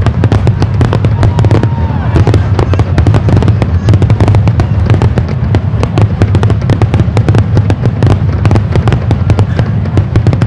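Aerial fireworks bursting in a dense, rapid barrage, many sharp cracks a second over a continuous low rumble.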